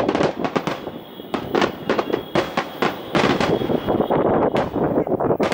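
Aerial firework shells bursting in quick succession, a dense run of sharp bangs with a brief lull about a second in before the bangs pick up again.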